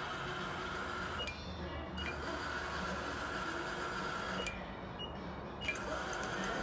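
Steady mechanical hum and hiss. The high part of the hiss cuts out briefly twice.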